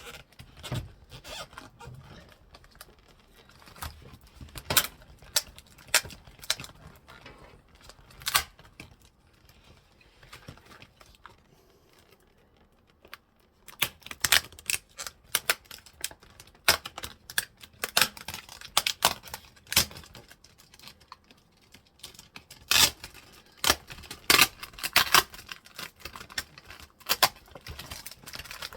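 Sharp plastic clicks, cracks and taps at irregular intervals as the glued-down keyboard of a Toshiba laptop is prised and peeled up from its chassis. There is a quieter stretch of a few seconds in the middle.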